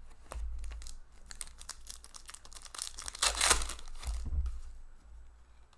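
Plastic wrapper of an Upper Deck hockey card pack crinkling and tearing open, loudest a little past the middle, with cards being flicked and shuffled by hand before it.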